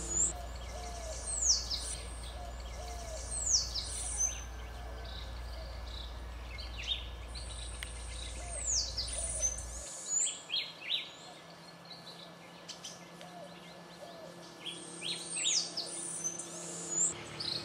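Birds singing: high whistles that sweep downward, repeated about every two seconds, among short chirps. A low steady hum underneath cuts off about ten seconds in.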